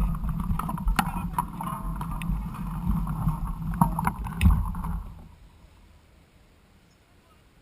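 Mountain bike riding a rough trail: low wind rumble on the camera with frequent knocks and rattles. The noise stops about five seconds in, leaving only faint hiss.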